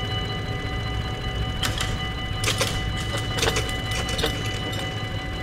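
Dutch level-crossing warning bell ringing steadily while the barrier arms come down. In the middle there is a cluster of sharp knocks and clatters as the booms reach the bottom and settle.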